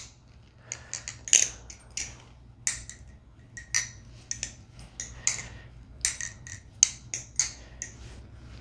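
MachineWise Mayrn Lite balisong being flipped: its handles click and clack sharply and irregularly, a few times a second, as they swing open and shut.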